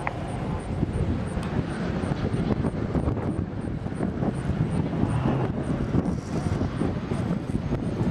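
Steady, wavering low rumble of outdoor noise, with no clear single source.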